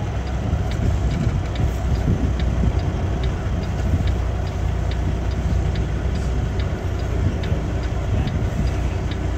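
Semi truck's diesel engine running at low speed while reversing, with the hazard-light flasher ticking steadily, about two to three clicks a second.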